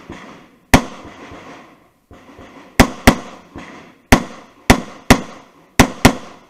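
Eight pistol shots from a Glock handgun during a timed course of fire. Each is a sharp crack with a short ringing tail: one shot, a pause of about two seconds, then seven more in quick succession, including two fast pairs near the middle and the end.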